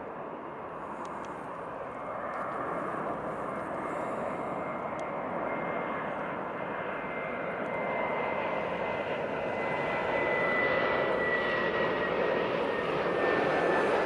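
Jet engines of an Airbus A321 airliner on final approach, growing steadily louder as it nears, with a high whine that slowly falls in pitch.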